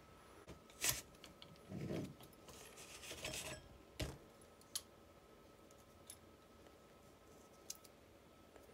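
Faint handling sounds of a Fiat 126 starter motor being taken apart: a metal click, then a scraping rub as the armature is drawn out of its field-coil housing, a sharp knock about four seconds in, and a few light ticks afterward.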